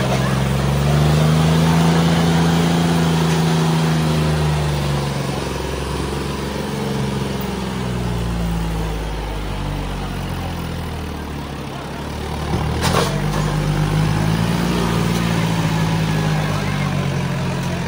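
Tractor diesel engines straining at high revs under full load as the hitched tractors pull against each other, the engine note swelling and sagging in pitch in a few long surges. A single sharp crack about 13 seconds in.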